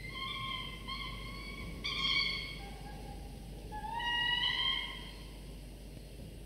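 Peregrine falcon chicks, about three and a half weeks old, giving a run of drawn-out wailing begging calls while the adult feeds them. There are about five calls, each lasting half a second to a second, several rising slightly in pitch.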